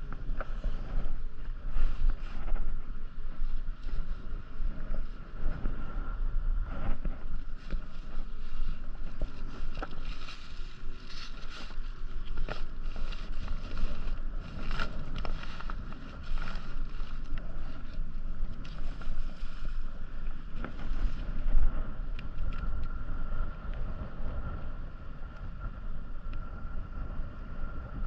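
Kayak being paddled on the sea: irregular splashes and drips of water from the paddle strokes over a steady wash, with wind rumbling on the microphone.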